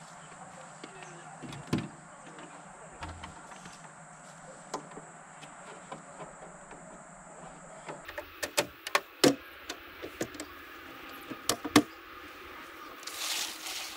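Sharp plastic clicks and knocks of an outdoor electrical box's hinged cover being opened and shut and a cord plug pushed into its socket, a few scattered at first, then a quick cluster of louder ones, with a short rustle near the end.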